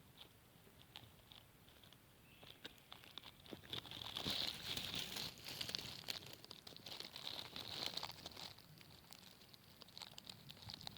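Camera handling noise: faint crackling with scattered clicks as the camera is moved around, busier in the middle.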